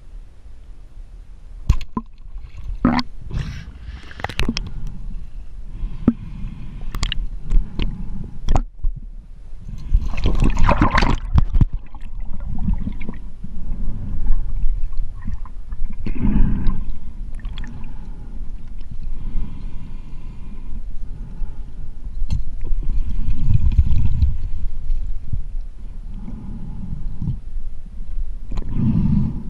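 Water sloshing and gurgling around a camera housing at the sea surface. Many sharp clicks come in the first nine seconds, then louder rushes of water every five or six seconds.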